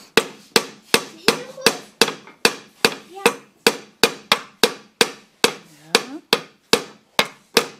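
A small wooden-handled hammer driving a nail into a thin wooden board: a steady run of sharp knocks, about two to three blows a second, each ringing briefly.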